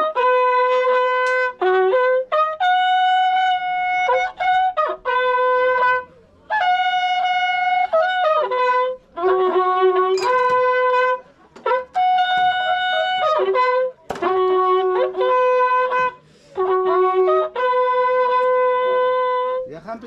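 Waqrapukus, Andean trumpets made of coiled cow-horn sections, blown together in long held notes. The notes step between a few pitches in phrases of a few seconds, broken by short pauses.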